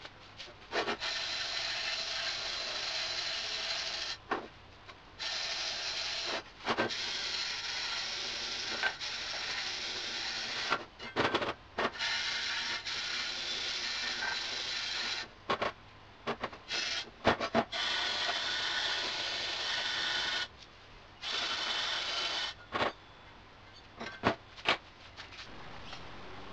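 Lincoln flux-core wire welder laying beads in runs of one to four seconds: a steady crackling sizzle that starts and stops abruptly, with sharp clicks and taps between the runs.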